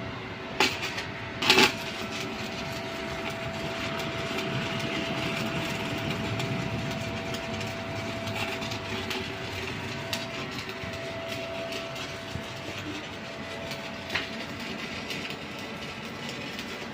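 Stick (SMAW) welding arc crackling steadily as a 6G pipe weld is run, after a few sharp cracks in the first two seconds as the arc is struck. A thin steady whine sits underneath.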